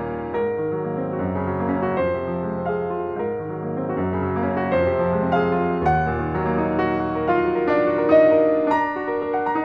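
Piano music of the film's score, a steady run of notes ringing over one another.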